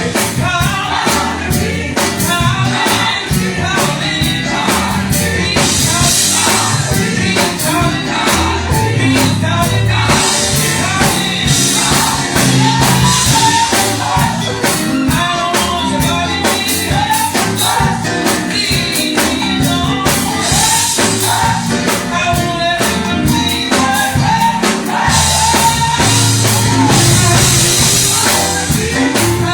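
Gospel choir singing with a band: drums, bass and tambourine keeping a steady beat under the voices.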